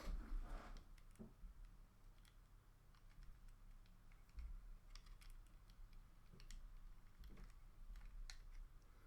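Faint, scattered clicks and taps of small plastic toy-car parts being handled and fitted back together.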